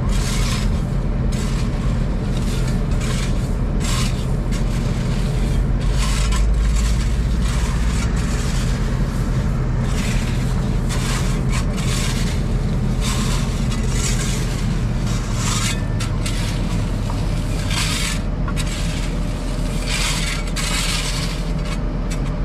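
Volvo 235EL excavator's diesel engine running steadily, heard from inside the cab, with short scraping sounds repeating every second or so.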